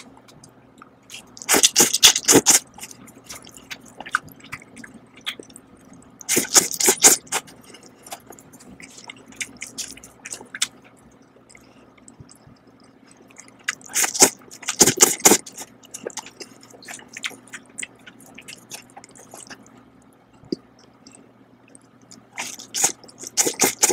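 Instant cup noodles slurped up close four times, each a loud wet slurp about a second long, with quieter chewing between.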